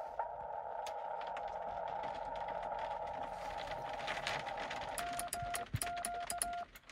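Xiegu X6100 transceiver's receiver hiss heard through its narrow CW filter, with scattered crackles. About five seconds in the hiss cuts out and a steady Morse code sidetone begins, keyed in dits and dahs on a cootie (sideswiper) key whose contacts click along with the tone.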